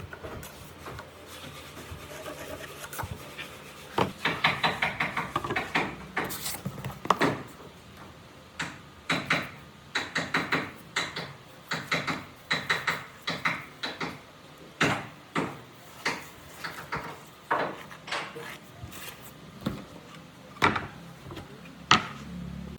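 A hand tool rubbing against wood in quick runs of strokes, several a second, broken by pauses and a few sharp knocks.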